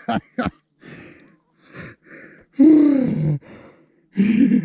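A man gasping and breathing sharply from the shock of cold river water, with one loud, drawn-out falling groan about two and a half seconds in and a short cry near the end.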